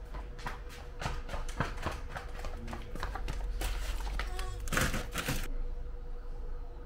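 Footsteps and knocks on a hard floor as a person carries heavy bottled-water containers past, with a louder stretch of rustling and scraping about four to five seconds in. A faint steady hum runs underneath.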